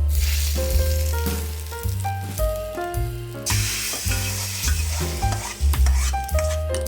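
Food sizzling as it is fried and stirred in hot oil in a pan, over background music with a low bass line.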